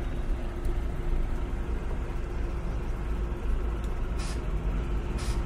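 Slow-moving road traffic: a steady low rumble of idling and creeping car and truck engines with a constant engine hum. Two short hisses come near the end, about a second apart.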